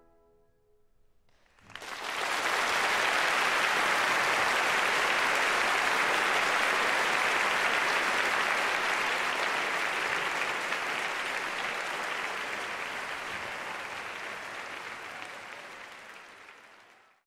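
Concert audience applauding. The applause starts suddenly about a second and a half in, after a near-silent pause, and slowly fades away toward the end.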